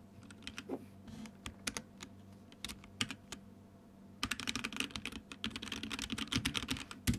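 Computer keyboard typing: scattered keystrokes at first, then a fast run of typing from about four seconds in, ending with a sharper click.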